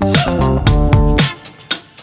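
Background music: funky plucked guitar and bass with a steady beat.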